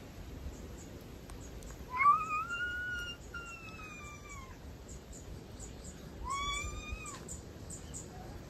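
Domestic cat meowing twice: a long drawn-out meow that rises and then falls about two seconds in, and a shorter one about six seconds in.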